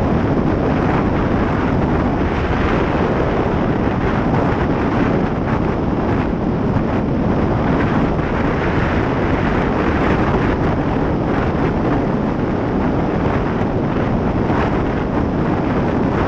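Steady, loud wind noise from riding a motorcycle, hitting the built-in microphone of a helmet-top GoPro Hero 4 Session. At road speed it drowns out the rest of the audio, a sign that the camera's mic can't cope with wind above about 20 mph.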